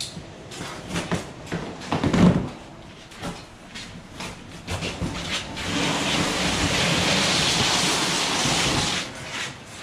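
Large cardboard shipping box being unpacked: scattered knocks and a thump about two seconds in, then about three seconds of steady, loud rough rustling as the cardboard is pulled apart and away.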